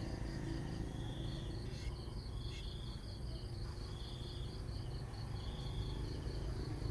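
Crickets chirping: a steady run of quick high chirps, with a longer trill about every second and a half, over a low hum.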